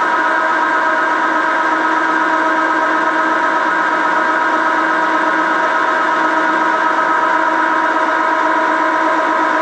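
1955 Meuser metal lathe running steadily under power, its spindle turning an aluminium workpiece. It gives an even whine made of several steady tones, with no change in speed.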